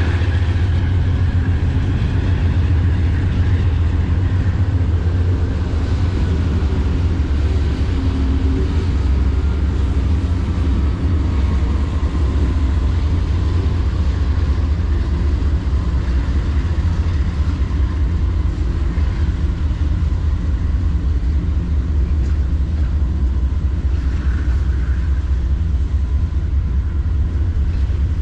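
Diesel engines of PanAm's GE C40-8 freight locomotives running during switching: a steady, heavy low rumble. A faint whine falls slowly in pitch over the first dozen seconds.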